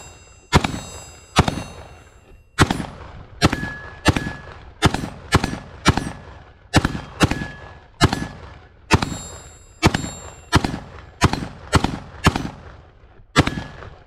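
A .223 Christensen Arms rifle fired rapidly, about nineteen shots at roughly one and a half a second. Several shots are followed by a short ringing ping from the steel railroad rail being hit.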